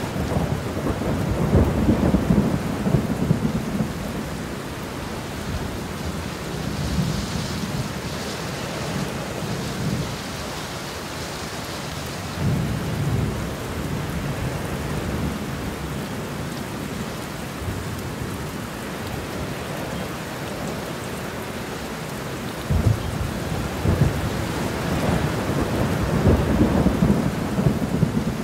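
Heavy rain pouring steadily, with thunder rumbling low at intervals: a roll near the start, a shorter one about halfway, and the longest over the last few seconds.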